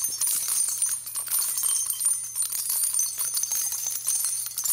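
Bells jingling and tinkling steadily, a dense high shimmer of small metallic clicks and rings.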